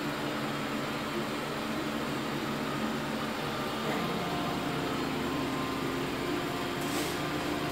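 Steady mechanical hum with a few low tones, its pitch shifting slightly about four seconds in.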